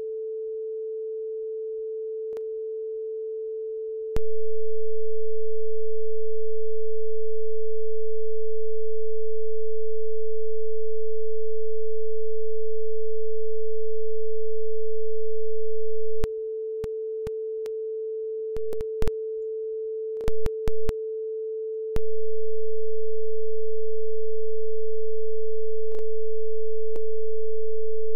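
Arturia ARP 2600 emulation sounding one steady, pure mid-pitched tone. Its volume is stepped up and down several times: quieter at first, louder from about four seconds in, dropping back with brief flicks up between about sixteen and twenty-two seconds, then loud again, and each step makes a click.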